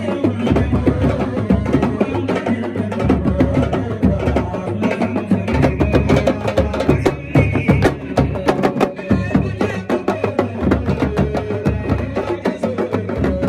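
A troupe of djembes and other hand drums playing a fast, dense rhythm, with a man singing into a microphone over the drumming.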